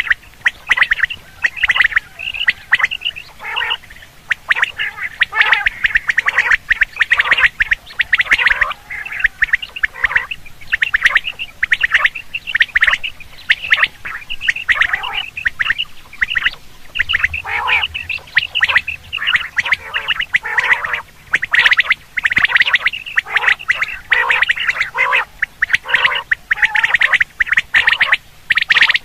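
Common quail calling: a dense, near-continuous run of short, harsh, rapidly repeated call notes.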